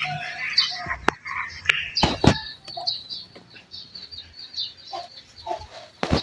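Frogs calling, short croaks repeated irregularly, with several sharp clicks or knocks among them.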